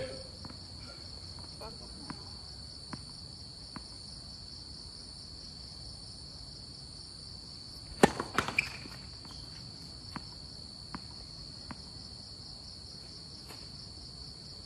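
Tennis ball hit on a serve: one sharp crack of racket on ball about eight seconds in, followed within half a second by a few quicker knocks of the ball bouncing and being struck, with a few faint ball taps on the hard court before and after. A steady high trill of insects runs underneath.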